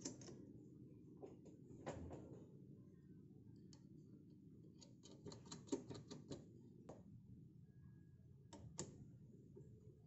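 Faint small metal clicks and taps of die pieces and clamping screws being set into a CP ratchet pipe die stock head by hand, with a quick run of clicks about halfway through.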